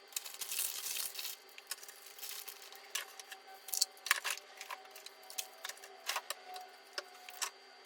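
Scattered clicks, taps and rustles of food containers and packets being handled and moved about in a fridge, over a steady low hum.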